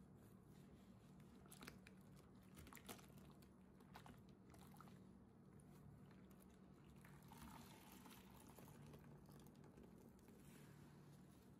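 Faint wet crackling and squelching of soapy foam as a large suds-soaked sponge is pressed and squeezed in a tub of Dettol solution, with scattered small crackles early on and a soft wet hiss of draining suds later.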